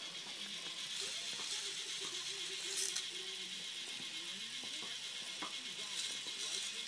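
Home-built toy roller coaster made from construction-set rods and plastic track running: a steady mechanical whir and rattle with a couple of sharp clicks, about three seconds apart.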